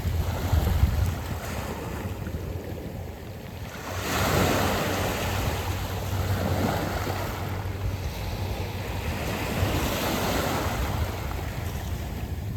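Sea waves washing up and back over a beach of smooth round pebbles, one surge swelling about four seconds in and another near ten seconds. Wind rumbles on the microphone underneath.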